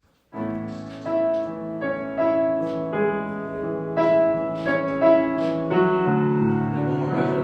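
Piano intro to a song: chords struck about once a second over sustained notes, starting suddenly just after the beginning.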